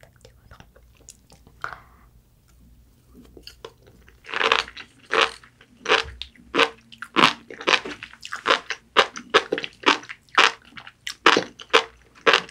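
Sea grapes (umibudo seaweed) being chewed, with crisp crunches coming at roughly two a second. The crunching starts about four seconds in, after a few faint clicks.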